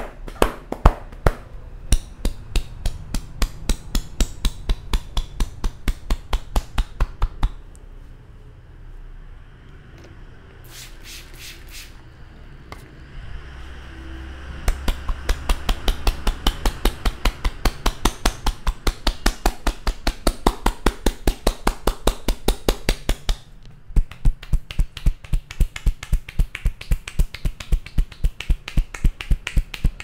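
A barber's clasped, cupped hands striking the scalp in rapid rhythmic claps during a head massage: a fast run of sharp pops, several a second. The pops stop for a few seconds near the middle and briefly again later.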